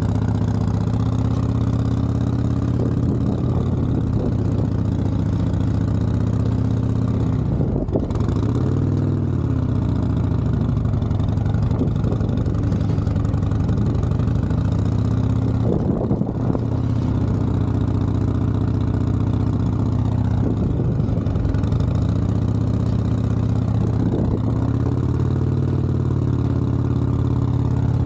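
Motorcycle engine running at low, near-idle revs during slow-speed riding. The revs rise and fall briefly several times as the throttle and clutch are worked.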